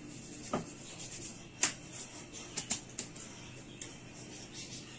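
Wooden rolling pins working pizza dough on a floured granite countertop: soft rubbing, with a few sharp taps and clicks of wood on stone.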